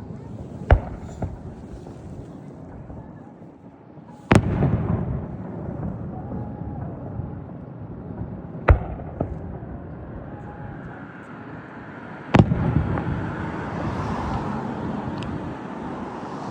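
Fireworks going off: four sharp bangs a few seconds apart, two of them followed by a long rolling rumble that fades slowly.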